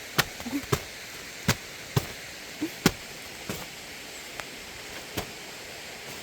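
Boots crunching on icy snow as someone steps down a slope: about seven sharp, irregular crunches, the loudest near three seconds in, over a steady hiss.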